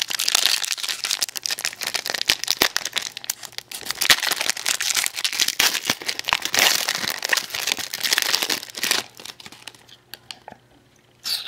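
A hockey card pack's wrapper being torn open and crinkled by hand, a dense run of crackling and small snaps that dies down about nine seconds in, with one more short rustle near the end.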